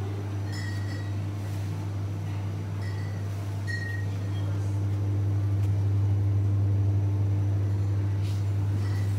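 Steady low electrical hum of a refrigerated produce display chiller, swelling slightly about six seconds in. A few faint short high pings sound in the first four seconds.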